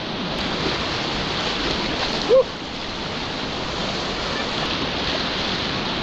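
Potomac River whitewater rapids rushing loudly and steadily around a kayak. A brief loud vocal yelp cuts in about two seconds in.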